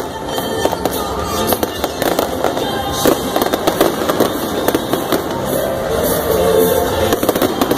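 Aerial fireworks bursting with many sharp bangs in quick succession, with music playing alongside.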